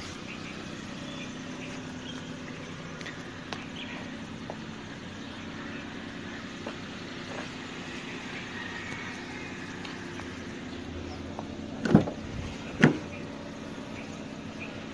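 A steady low mechanical hum throughout, with two sharp knocks about a second apart near the end as the Suzuki hatchback's tailgate is opened.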